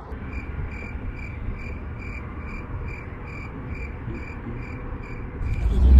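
A high chirp repeating evenly about two and a half times a second, over a steady low rumble.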